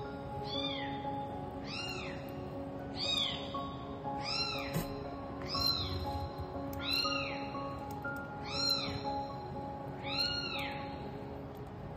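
Newborn kitten mewing: a string of short, high-pitched mews, each rising then falling, about one every second and a half, eight in all.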